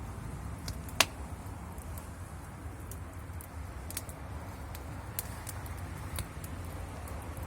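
Steady low room hum with scattered sharp clicks, one louder click about a second in.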